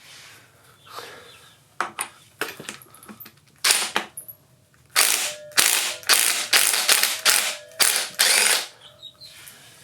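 Impact wrench hammering in about seven short bursts, loosening a tight motorcycle clutch lock nut, after a few single clicks of the tool being fitted.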